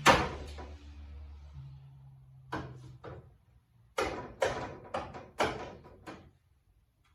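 A run of sharp knocks and bangs on the truck's body panels, about ten in all and irregularly spaced. The first is the loudest, and most of the knocks come in a cluster a little past the middle.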